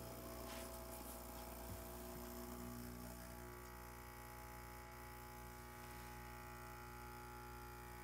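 Faint, steady hum from an espresso machine. Its tone changes about three and a half seconds in as the brew pump starts for a shot.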